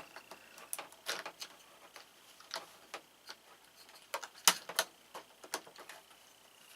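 Irregular plastic clicks and knocks from AA batteries being fitted into a cat wall clock's battery holder, with the clock's pendulum tail knocking about as the clock is handled.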